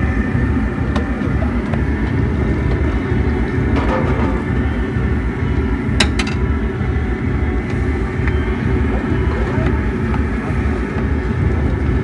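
A steady, loud low rumble with one sharp click about six seconds in.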